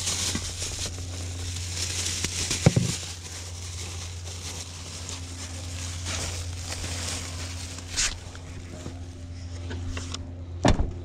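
Plastic grocery bags crinkling and rustling as they are lifted and handled, with a short knock a few seconds in, over a steady low hum. Near the end a car door shuts with a sharp thump.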